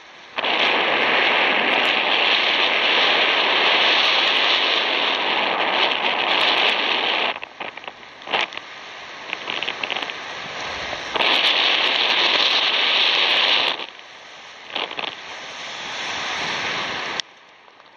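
Wind rushing over the microphone of a paraglider in flight. It comes in long loud stretches, one of about seven seconds and another about eleven to fourteen seconds in, with quieter gaps and a few short knocks between.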